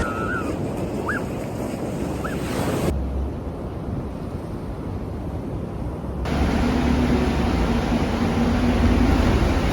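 Ocean surf and wind rushing on the microphone, in three short segments that cut abruptly one into the next. A few brief rising chirps sound in the first couple of seconds, and a steady low hum joins after about six seconds.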